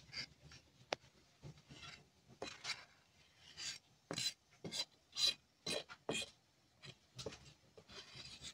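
Knife blade scraping chile salsa off a maguey leaf into a bowl, in repeated short rasping strokes, about two a second at the busiest. A single sharp click about a second in.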